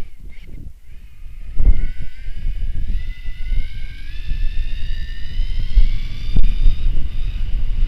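Electric mountain bike motor whining, its pitch rising steadily as the bike speeds up. Heavy wind buffeting and rumble on the microphone sit underneath.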